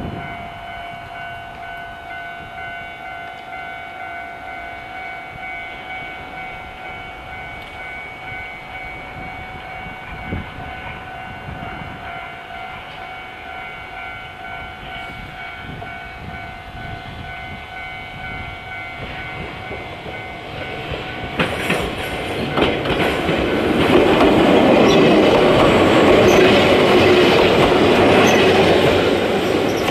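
Ex-Keihan 3000 series electric train approaching and passing close by, its wheels clattering over rail joints and its running gear rumbling. It grows suddenly louder about two-thirds of the way in and is loudest near the end. Before it arrives, a steady high ringing tone is heard in the background.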